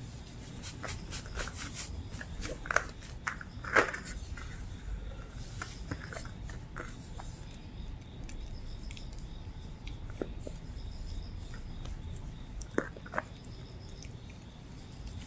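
Shih Tzu puppy chewing and gnawing on a cotton rope toy, with soft rustling of rope strands being handled and a few short sharp clicks scattered through it.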